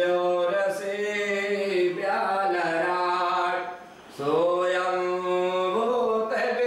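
A man chanting a Hindu prayer to Shiva in long held notes, pausing for breath about four seconds in.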